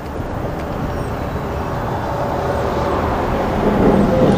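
Steady rumble of a passing vehicle, slowly growing louder.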